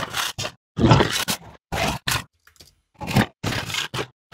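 Designed monster voice: a spoken dialogue line morphed with layered animal snarl, grumble and jaguar textures, coming out as a rough, gravelly growl in several short word-like bursts.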